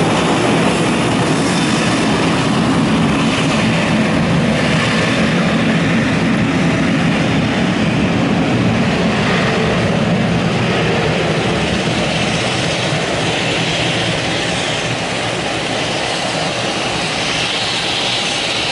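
Twin CFM56-7B turbofans of a Boeing 737-700 at takeoff thrust on the takeoff roll: loud, steady jet engine noise that fades slightly over the last several seconds as the airliner moves away.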